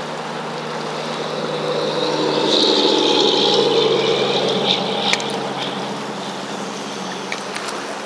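Fast river current rushing steadily, overlaid by a humming sound that swells to a peak about halfway through and then fades.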